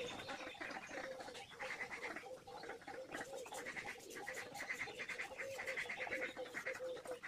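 Paintbrush bristles scrubbing and dabbing on paper in quick, short, repeated strokes, over a steady, slightly wavering hum.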